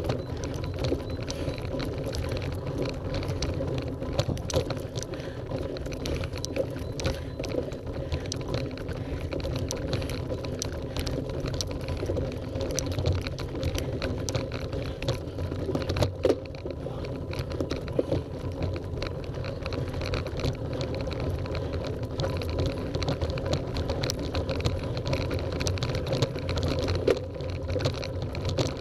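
Bicycle riding slowly over cobblestones: a constant rattling clatter of irregular knocks as the wheels jolt over the stones, with one sharper knock about halfway through.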